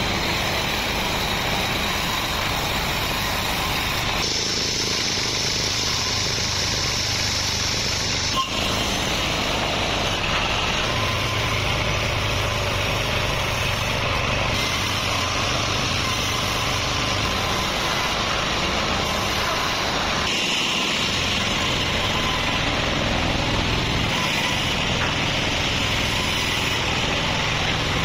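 Sawmill band saw machinery running, a loud steady mechanical drone with a higher whine, changing abruptly in tone a few times.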